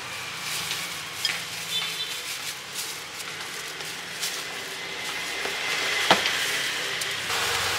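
Steady hiss with light clinks and knocks of bowls and utensils being handled while noodles are served; one sharper knock about six seconds in.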